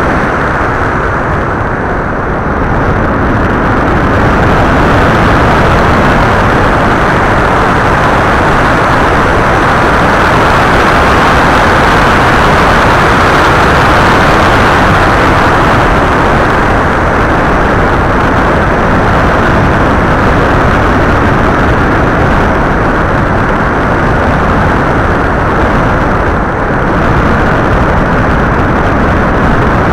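Loud, steady rush of wind and propeller noise buffeting the onboard camera microphone of an FPV model aircraft in flight, dipping slightly twice.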